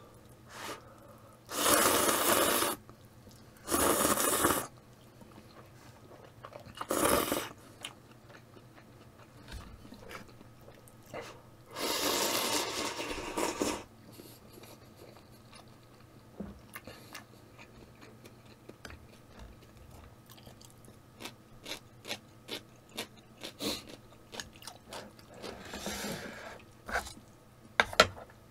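Instant ramen noodles and broth slurped in four loud bursts, the longest about twelve seconds in as broth is sipped from a small bowl, followed by soft chewing and small clicks.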